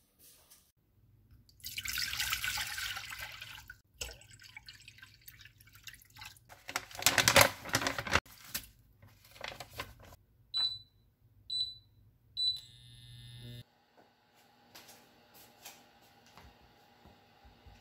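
Kitchen sounds in sequence: tap water running into a pan for about two seconds, a plastic broth packet rustling as its pack is dropped into the water, then three short beeps from an induction cooktop's touch controls about a second apart. Near the end, faint knife taps on a wooden cutting board.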